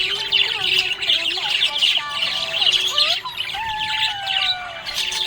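Budgerigar chattering and chirping in a rapid, continuous twitter, with gliding warbled notes and a longer falling note about halfway through.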